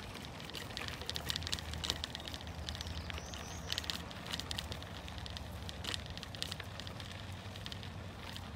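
Bicycle tyres crunching and crackling over a sandy gravel path while riding, with a low steady wind rumble on the microphone.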